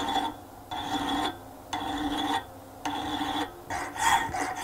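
Hand file rasping against a steel bolt blank spinning on a wood lathe, in about five strokes, each roughly half a second long. The turner is breaking, or chamfering, the edge of the metal bolt.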